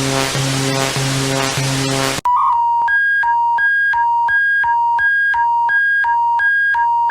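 Emergency-alert alarm tones in turn: a harsh buzzing tone pulsing a little under twice a second, which cuts off about two seconds in, followed by a clean electronic beep alternating between a low and a higher pitch, about one and a half low-high cycles a second, that stops abruptly at the end.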